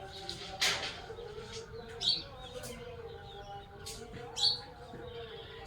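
Birds chirping, with short sharp chirps that stand out about two seconds and about four and a half seconds in, over a faint steady hum.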